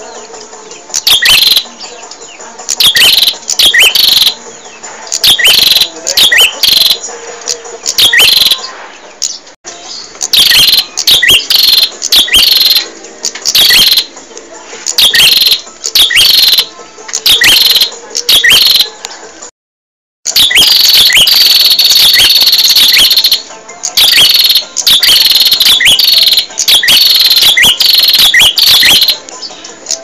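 Prinia (prenjak) calling loudly and repeatedly: runs of sharp, high, downward-sweeping chirps in bursts about once a second, broken by a brief dead-silent gap about twenty seconds in.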